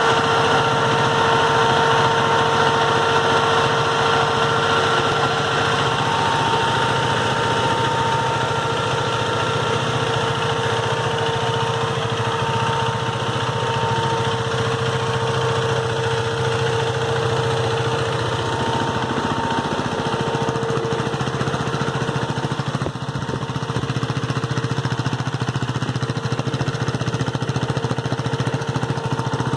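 KTM Duke 390's single-cylinder engine idling steadily through its exhaust.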